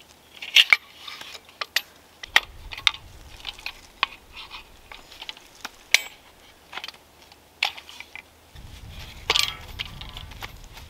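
Wooden folding bucksaw being unfolded and assembled: its hardwood arms, stretcher and blade clack and click against each other in a dozen or so sharp, irregular knocks. There is a short rattle near the end as the cord tensioner is twisted tight.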